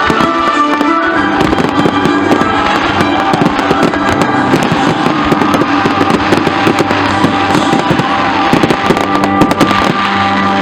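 Fireworks display going off: a dense, continuous stream of sharp cracks and pops, over loud continuous music.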